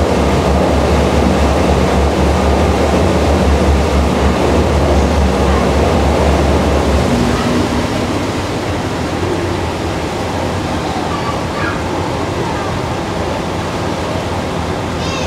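Boat engine running with water rushing past the hull, heard from aboard the launch; the low engine hum drops off about seven seconds in, leaving mostly the water and wind noise.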